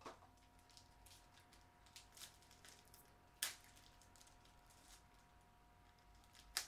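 Faint handling noises of a trading card box and its cards being opened and sorted: light rustles and clicks, with two sharp snaps about three and a half seconds in and near the end. A faint steady electrical whine runs underneath.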